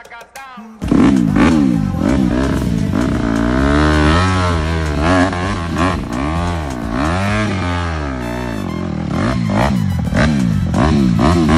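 Dirt bike engine revving up and down over and over as the rider works the throttle climbing a steep, loose dirt slope. It starts suddenly about a second in.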